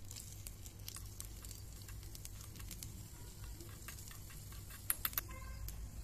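A small metal spatula scrapes and taps in a miniature brass kadai while an ingredient is stirred into hot oil, over a faint sizzle. About five seconds in come three sharp taps close together, and the brass rings briefly after them.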